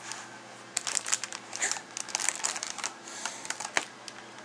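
A baby scrunching and handling crinkly wrapping, giving irregular bursts of crinkling rustles.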